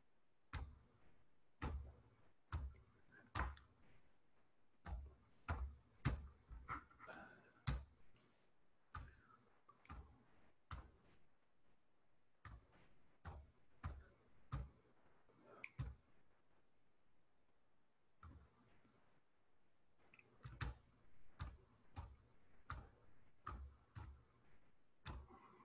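Faint, irregular clicks and taps of a computer keyboard and mouse, with a pause of a few seconds past the middle.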